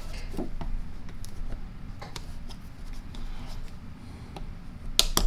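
Small clicks and scrapes of a pocket screwdriver tip prying at a reverse-selector button in an Ingersoll-Rand 2131 air impact's housing, with a louder pair of sharp clicks about five seconds in.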